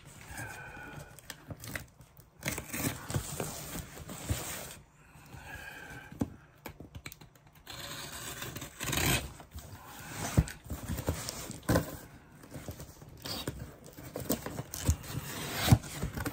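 Cardboard box and packaging handled and opened by hand: irregular scraping, rustling and tearing, with a few sharp clicks and knocks.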